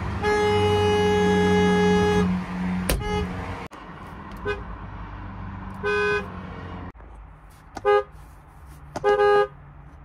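Ford Explorer car horns sounding: one long blast of about two seconds, then short toots and a few brief honks as the horn is tapped again, on more than one Explorer.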